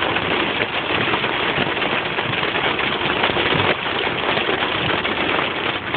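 Heavy rain beating on a car's roof and windshield, heard from inside the cabin: a steady, dense hiss made of countless small drop hits.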